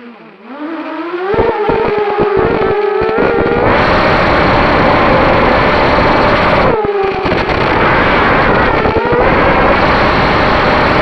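A 3D-printed quadcopter's electric motors and propellers whining, with the pitch falling and rising as the throttle changes. The throttle goes up about four seconds in, bringing a strong rush of prop noise, eases off near seven seconds, then climbs again.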